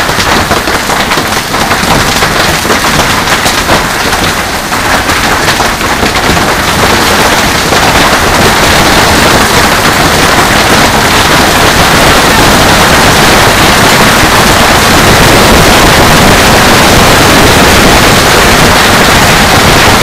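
Heavy hail pelting a covered patio, a swimming pool and the yard: a dense, continuous clatter of countless stone impacts. It grows louder and steadier about eight seconds in.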